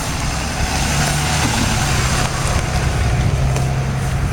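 An engine running steadily, a constant low hum with a noisy wash over it.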